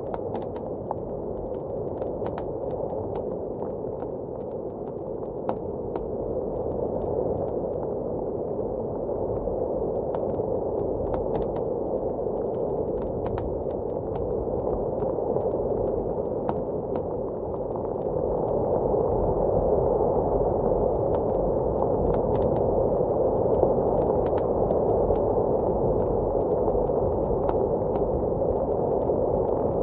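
Wood fire crackling in a fireplace, with scattered sharp pops, over a steady muffled rush of blizzard wind that swells louder a little over halfway through.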